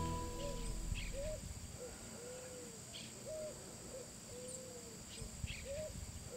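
Faint outdoor nature ambience of animals calling: a series of short, low, arching calls repeating roughly every half second to second, with a few brief higher chirps between them. Background music fades out at the very start.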